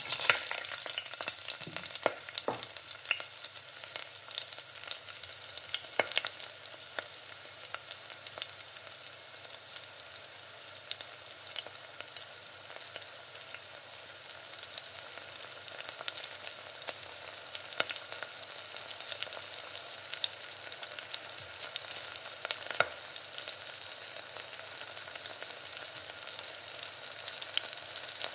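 Marinated chicken pieces, then whole spices, frying in hot oil in a stainless steel pan: a steady sizzle that starts suddenly at the start, with scattered sharp pops and crackles. A utensil stirs and scrapes in the pan now and then.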